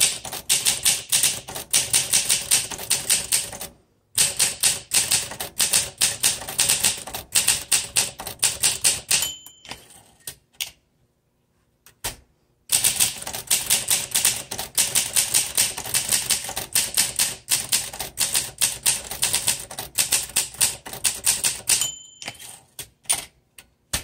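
1960 Olympia SM4 manual typewriter being typed on: quick runs of key strikes, the typebars snapping against the platen, with a pause of about two seconds near the middle. The margin bell dings twice, once near the end of each typed line.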